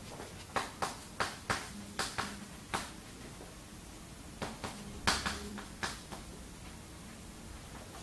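Chalk writing on a chalkboard: a series of short, sharp taps and scratches as the strokes of characters are made, one run over the first three seconds and another about five seconds in.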